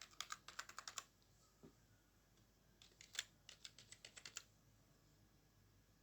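Typing on a computer keyboard: two short runs of quick key clicks, one at the start and another about three seconds in.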